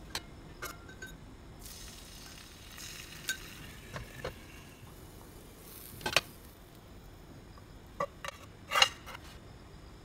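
Clinks and knocks of a glass pan lid and utensils against a nonstick frying pan and its metal ring mould, scattered through, loudest about six seconds in and in a quick cluster near nine seconds. A faint sizzle of soufflé pancake batter cooking comes and goes between them.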